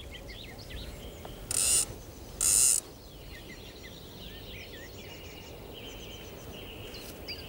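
Fishing reel being worked by hand, giving two short whirring bursts about a second apart, each under half a second. Birds chirp faintly throughout.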